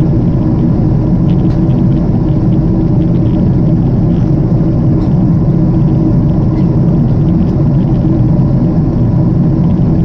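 Steady jet-airliner cabin noise in flight: a constant rumble of engines and rushing air, with a faint steady hum above it. The aircraft is a Japan Airlines Boeing 777-300.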